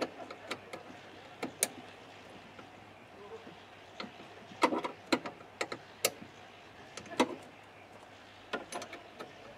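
Small metal wrench clinking and clicking against the brake line nuts on a brake master cylinder as they are tightened: a dozen or so sharp, irregular metallic taps.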